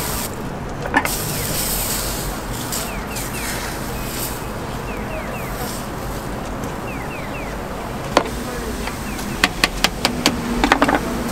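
Steady street noise with a low hum, a sharp click about a second in, and a quick run of clicks and knocks near the end.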